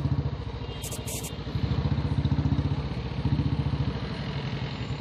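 Motorcycle engine idling in slow, stop-and-go traffic with an even pulsing beat, growing louder twice.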